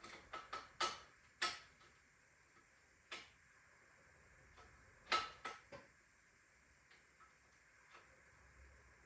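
Light metallic clicks and clinks of small bicycle parts, nuts and washers, being handled during disassembly: a quick run of clicks at the start, a single one about three seconds in, another short run around five seconds in, then a few faint ticks.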